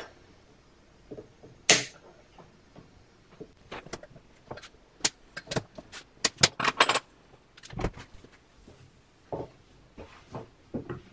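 Hand scissors snipping at the speaker panel's edge: a string of sharp snips and clicks, one loud snip about two seconds in, a quick run of them a few seconds later, then a few spaced ones.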